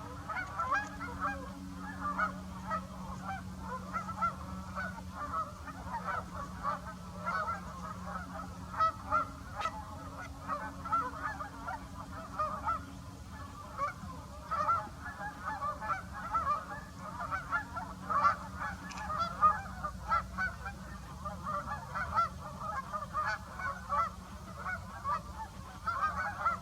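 A large raft of Canada geese honking in a dense, continuous chorus of overlapping calls.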